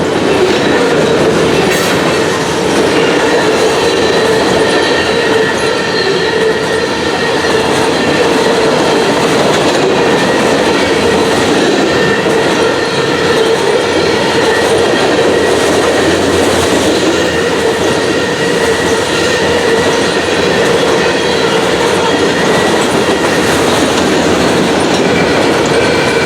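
Freight cars of a Norfolk Southern train rolling past: a steady rumble and clatter of steel wheels on the rails, with a thin, steady high wheel squeal running through it.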